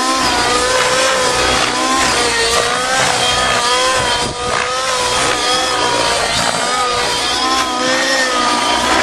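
Align T-Rex 700 radio-controlled helicopter flying aerobatics: a loud, continuous whine from its rotors and drivetrain, the pitch dipping and recovering again and again as it is thrown through vertical climbs and flips.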